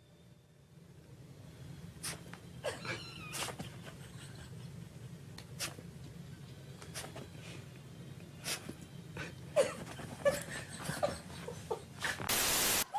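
A pet dog making short, squeaky vocal sounds and snuffles over a low steady hum, with scattered clicks. A brief burst of harsh noise comes near the end.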